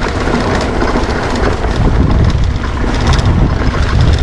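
Wind rumble on the camera microphone and the clatter of a mountain bike rolling down a rough dirt trail: tyres on loose ground and rattling from the bike, with many sharp clicks and knocks.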